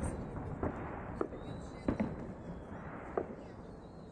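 Fireworks display: aerial shells bursting in sharp reports over a continuous rumble, about six at uneven intervals, the last one about three seconds in. After that the rumble fades.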